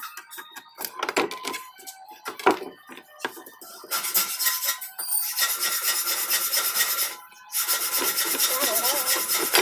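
Hand work on a strip of wooden quarter-round molding: light knocks and handling at first, then about four seconds in a run of rapid rubbing, rasping strokes against the wood, broken by a short pause near seven and a half seconds before going on.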